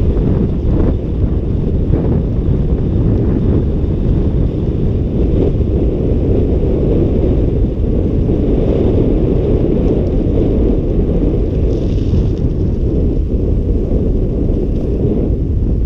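Wind buffeting a GoPro's microphone on a fast downhill ride: a loud, steady low rumble.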